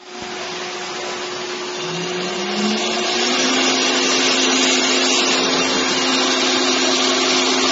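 CNC router spindle motor spinning up. Its whine rises in pitch for about a second, starting about two seconds in, then holds steady as the sound grows louder, over a constant hum and a steady rushing hiss.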